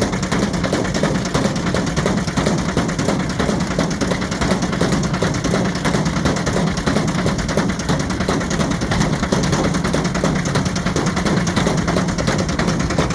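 Ariston Margherita washing machine running with a brick loose in the drum: a steady motor hum under a loud, continuous, rapid rattling and knocking.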